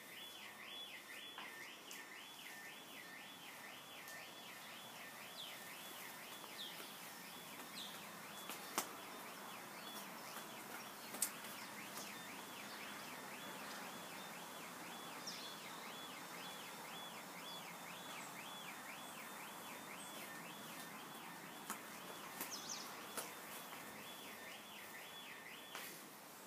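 Faint background hum with a steady high warbling tone that rises and falls about twice a second and cuts off near the end. Two sharp clicks come in the middle, with a few short bird chirps here and there.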